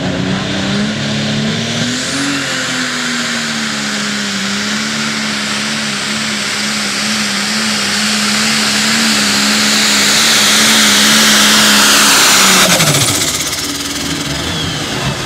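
Super stock pulling tractor engine running flat out under load at a steady pitch, with a hiss building over it as the pull goes on. About 13 seconds in the engine note falls sharply as the throttle comes off at the end of the pull.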